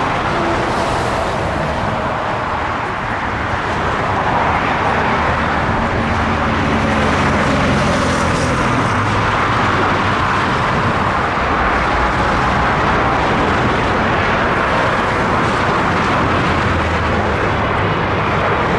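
Steady jet roar of a twin-engine Boeing 777 airliner approaching to land, growing a little louder about four seconds in.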